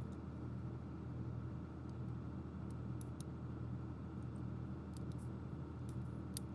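Steady low background hum, with a few faint clicks and taps of small plastic toy parts being handled during reassembly.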